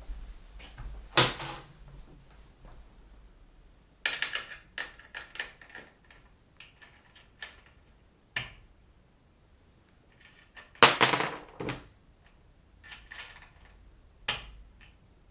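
Irregular clicks, knocks and short rattles of computer hardware being handled and fitted, with the loudest cluster of clatter about eleven seconds in.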